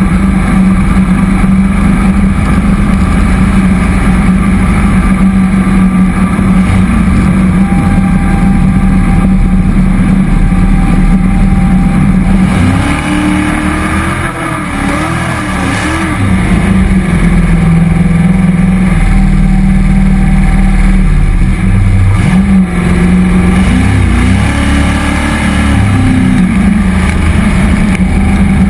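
Cammed 5.3-litre LS V8 driving a jet boat, running hard and steady, its pitch wavering up and down twice as the throttle changes.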